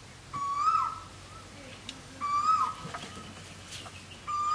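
A forest bird repeating the same short whistled call about every two seconds, three times, each a steady note that ends with a quick upward flick and drop. A few light clicks in between, from sticks or the blade being handled.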